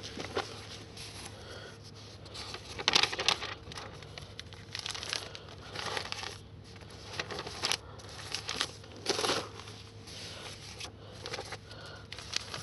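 Newspapers rustling and crinkling in irregular bursts as the sections are handled and put together, loudest about three seconds in and again near nine seconds.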